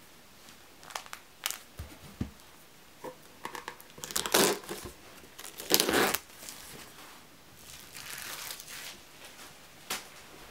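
Protective plastic film being peeled off the glass lid of a small wooden box and crinkled, with two loud ripping pulls about four and six seconds in and a softer rustle after. A few light knocks and clicks of the wooden box being handled come before.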